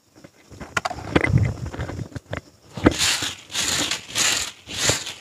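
Short stiff-bristled hand broom sweeping a dirt yard in regular swishing strokes, about two a second, starting about three seconds in. Before that come a few scrapes and knocks.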